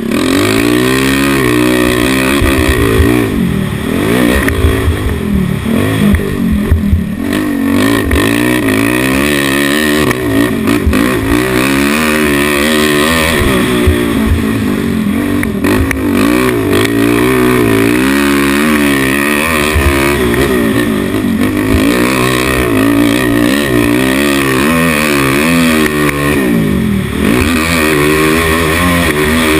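Motocross dirt bike engine, close up, revving hard and backing off again and again as the rider works the throttle and gears around the track, its pitch rising and falling every second or two.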